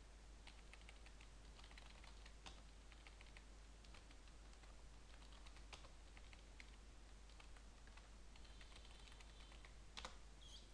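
Faint computer keyboard typing in short bursts of keystrokes, with one sharper, louder click near the end.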